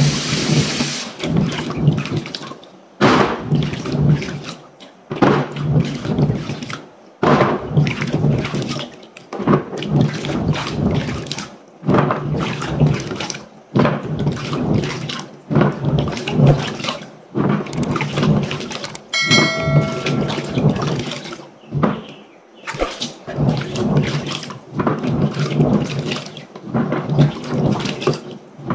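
Water splashing and sloshing in a plastic basin as hands swish and scrub small green plums, in irregular surges every second or two, with a tap running into the basin at first. A short high ringing tone sounds about two-thirds of the way through.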